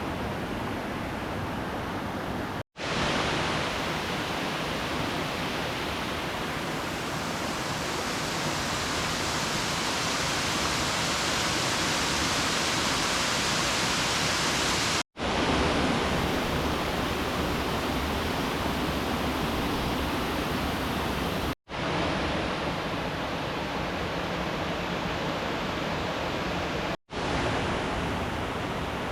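Steady rushing of river water, an even hiss across all pitches, cut by four momentary dropouts to silence.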